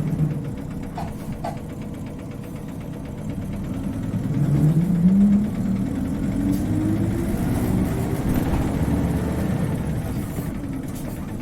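Isuzu Cubic KC-LV380N city bus engine heard from inside the bus: it runs at a low, steady rumble, then from about four seconds in accelerates with a tone that climbs for a few seconds before levelling off. The climbing, high-pitched note is this particular bus's distinctive engine sound when it pulls away.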